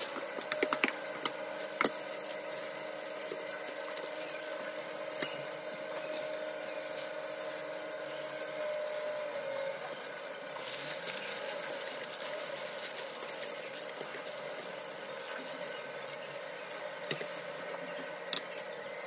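Aluminium foil crinkling and rustling as a meat roll is wrapped in it by gloved hands, with a few sharp crackles in the first two seconds and again near the end, over a steady faint hum.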